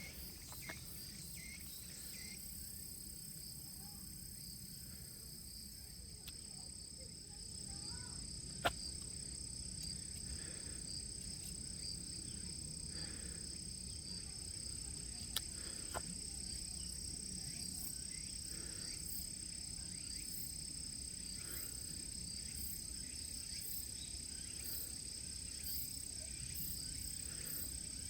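Insects singing in the woods: a steady, high-pitched chorus of continuous trills. From about halfway through, a second insect adds a rapid pulsing even higher up. Under it runs a low rumble, and a few sharp clicks stand out.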